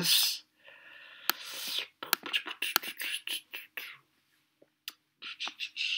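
A soft breathy hiss, then quick, irregular clicks of typing on a computer keyboard, pausing for about a second before a few more clicks near the end.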